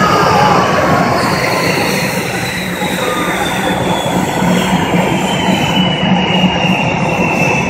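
A line of T-50B Golden Eagle jets running their turbofan engines on the ground: a loud, steady rumble under a high whine that slowly falls in pitch.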